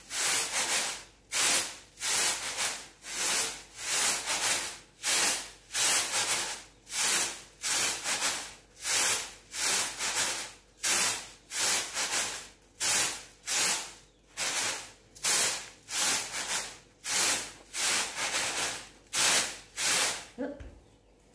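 Rice being winnowed on a round woven-bamboo tray (tampah): the grains hiss as they slide and toss across the bamboo with each flick, in a steady rhythm of about one and a half strokes a second that stops shortly before the end. The tossing separates husks, unhulled grains and small broken bits from the clean rice.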